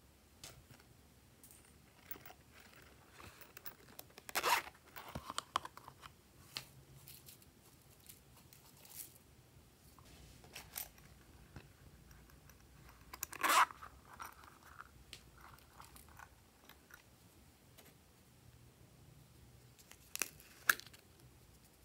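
Dry decorations being handled and dropped onto slime: scattered crinkling and crunching of paper strips and plastic pieces, with three louder crunches about four, thirteen and twenty seconds in.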